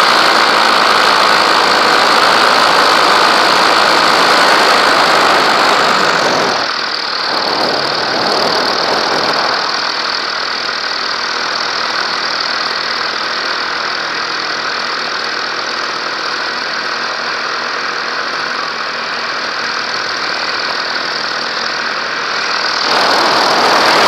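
Small aircraft engine running steadily, heard from on board. The sound dulls and drops slightly about six and a half seconds in, then comes back up just before the end.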